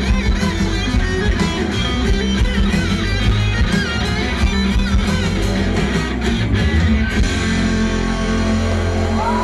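Live rock band playing through a festival PA, guitar to the fore, with drums until about seven seconds in, after which the chords ring on without them.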